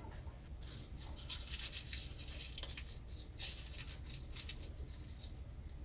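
A knife cutting a stick of butter: a run of irregular light scratching strokes that stops near the end.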